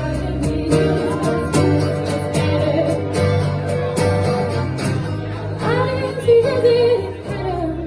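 A live band playing: a singer holds long, sliding notes over bass and drums with a steady beat.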